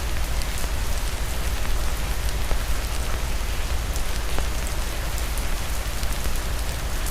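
Steady rain falling, an even hiss with a constant low rumble underneath and a few faint scattered ticks.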